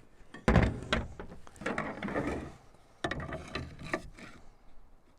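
Irregular wooden knocks, clicks and short scrapes of 2x4 lumber and tools being handled and positioned. No saw motor is running.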